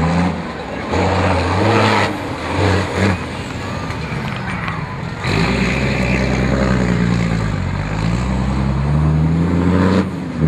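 Off-road racing truck's diesel engine revving hard under load, its pitch falling and rising again as the throttle changes. The sound changes abruptly about a second in and again about five seconds in.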